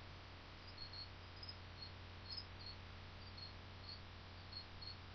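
Crickets chirping faintly in short, irregularly spaced chirps, over a steady low hum and hiss.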